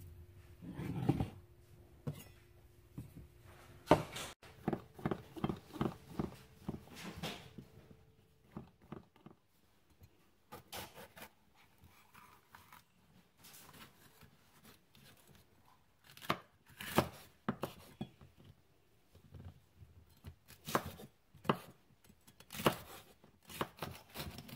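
Chef's knife chopping vegetables on a bamboo cutting board: sharp knife strikes, a quick run of them several times a second, then a quieter pause, then more strikes as a poblano pepper is diced near the end.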